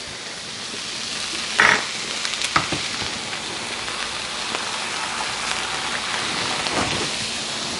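Rice, diced onion, red pepper and pineapple sizzling in oil on an electric griddle, a steady frying hiss. A couple of short, sharp knocks come about two seconds in.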